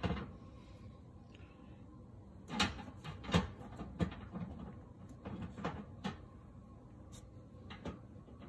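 Scattered clicks and knocks from hands working behind a stove, handling parts, wires or tools, about eight over the span, loudest a little after three seconds in.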